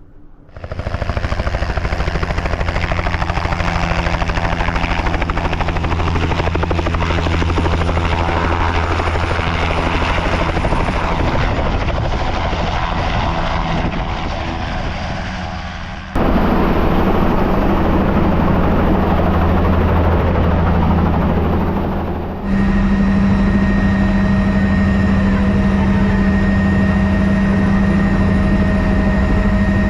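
Helicopter running steadily, its engine and rotor making a continuous loud noise. The sound changes abruptly about halfway through and again about two-thirds of the way through.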